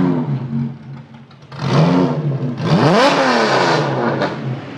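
Porsche engine being free-revved at a standstill through a custom removable-muffler/test-pipe exhaust: a short blip dying away at the start, a rev about a second and a half in, and a higher rev peaking about three seconds in, each falling back to a steady idle.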